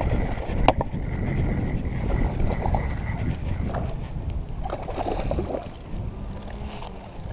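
Wind buffeting the action-camera microphone as a steady low rumble, with two sharp knocks in the first second from handling.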